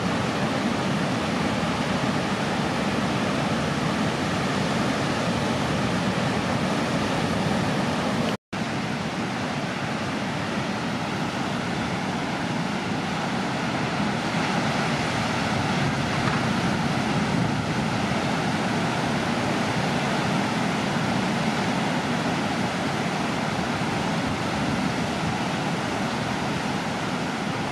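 Steady roar of ocean surf breaking, with a split-second dropout about eight seconds in.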